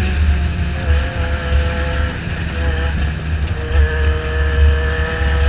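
Motorcycle engine running under way at a fairly steady speed, with wind rush over the microphone.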